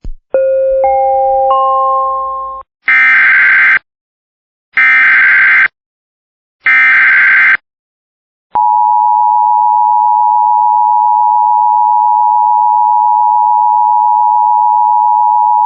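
Emergency Alert System alert tones opening a flood warning. A short rising three-note chime is followed by three identical bursts of SAME header data tones, then the steady two-tone EAS attention signal sounds for about eight seconds.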